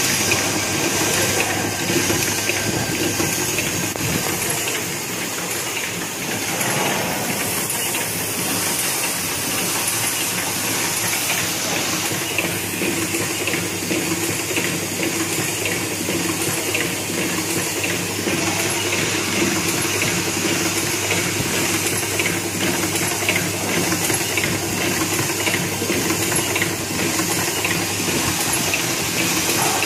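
Fully automatic UU9.8 steel-clip magnetic core assembling machine running: a steady hiss and a dense, continuous patter of small mechanical clicks over a constant hum.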